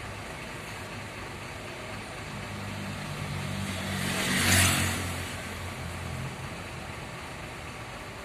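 A motor vehicle passes close by on the road: its engine and tyre noise swell to a peak about four and a half seconds in, then fade, over steady traffic noise.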